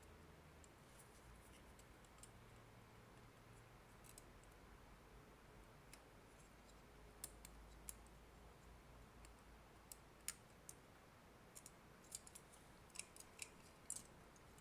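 Near silence with scattered light clicks and taps, a dozen or so, mostly in the second half, from the opened plastic casing and parts of a Nintendo Switch AC adapter being handled.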